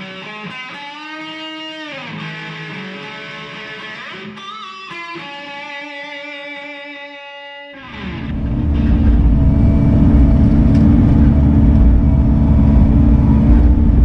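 An electric guitar plays a lead line with bent and held notes. About eight seconds in, it gives way to a Bobcat mini excavator's diesel engine running steadily and loudly, heard from inside the cab.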